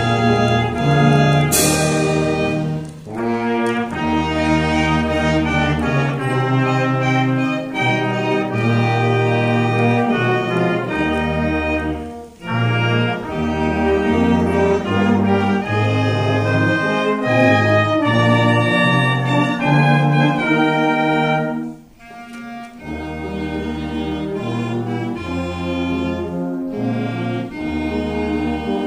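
Youth wind band of brass and woodwinds playing a tune, with trumpets on top and a tuba holding long bass notes. It plays in phrases, with short breathing gaps about 3, 12 and 22 seconds in, and a sharp crash rings out near the start.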